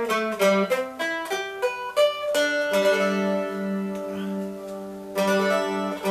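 Handmade bowl-back mandolin with a spruce top and scalloped rosewood ribs, played with a pick: a run of quick picked notes, then a chord held with rapid tremolo picking for about two and a half seconds, then quick notes again near the end.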